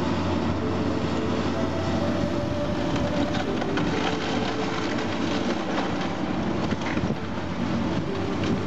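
Caterpillar excavator with a demolition grapple tearing apart a wood-frame building: the machine's engine runs steadily under continual cracking and crunching of timber and debris, with scattered high squeals.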